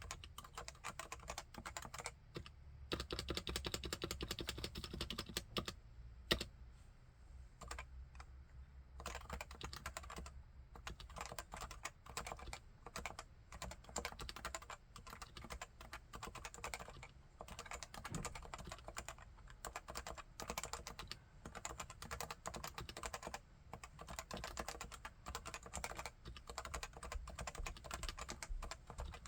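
Continuous typing on a Leopold FC980C keyboard with 45 g Topre capacitive switches. The keystrokes come in a dense, rapid stream, with a faster, louder run a few seconds in and one sharper stroke at about six seconds.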